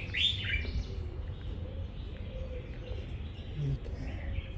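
Small birds chirping in a garden: a quick run of falling chirps in the first second, then fainter scattered calls over a low rumble.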